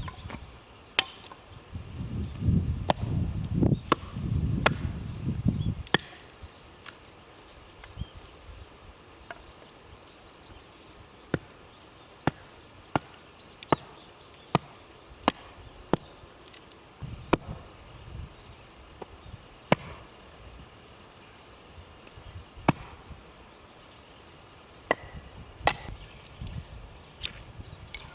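Wood being chopped: a series of sharp, separate knocks, about one a second through the middle, with low rumbling noise in the first six seconds.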